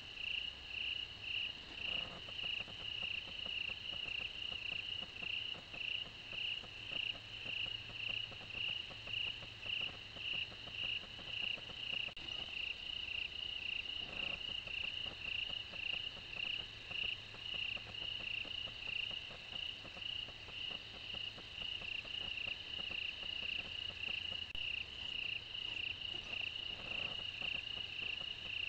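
Night insects chirping in a steady, even rhythm of about two high pulses a second, with a faint low hum underneath.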